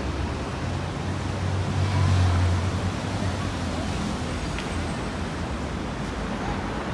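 Street traffic noise: a steady hum of passing road vehicles, with a low rumble that swells about two seconds in as a heavier vehicle goes by.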